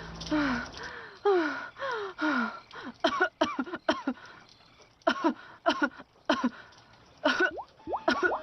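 A cartoon woman's voice gasping for breath in pained, falling-pitched gasps, then coughing in short fits of two or three coughs from about three seconds in, worn out after being beaten.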